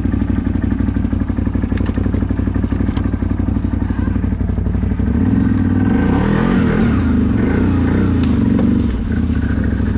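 CFMoto 1000 ATV's V-twin engine running steadily at low revs, then revving up and down and getting louder for about four seconds from about halfway in, before settling back.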